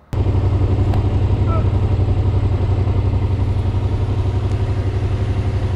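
Yamaha motorcycle engine idling steadily at a standstill, with a quick, even pulse, heard close up from the rider's position on the bike.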